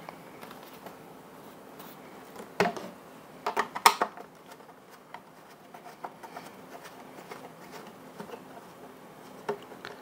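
Quiet handling of a plastic Ryobi cordless leaf blower and a hand screwdriver: a few sharp clicks and knocks about three to four seconds in, then faint scratching ticks as a screw is turned out of the blower's underside.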